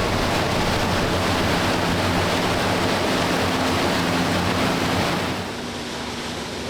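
Strong wind rushing over the microphone on a moving tour boat, over the steady low hum of the vessel's engine. The wind noise drops away about five seconds in, leaving the engine hum.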